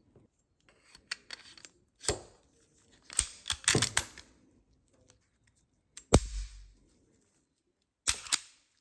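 Sharp metallic clicks and clacks of a Sig Sauer P365 pistol being handled as its slide and takedown lever are worked. A busy run of clacks comes about three seconds in, a loud snap with a low thud about six seconds in, and a quick double click near the end.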